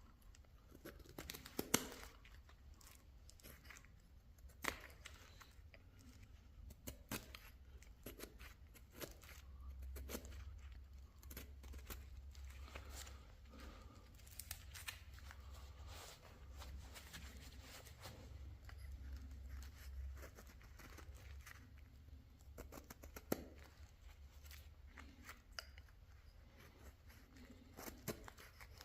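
Hand chisel paring and slicing a maple honey dipper blank. Irregular, quiet cutting and scraping strokes come with occasional sharper snaps as shavings come away.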